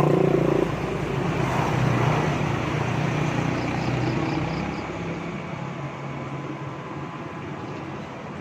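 A motor vehicle's engine hum, growing fainter over the first few seconds.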